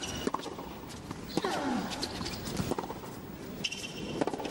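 Sharp pops of a tennis ball on a hard court, about four spaced a second or so apart, over a faint arena crowd murmur.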